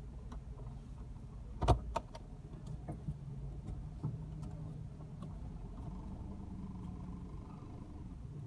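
Inside a moving car: a steady low engine and road hum, broken about two seconds in by a sharp double knock, the loudest sound, then a few lighter clicks.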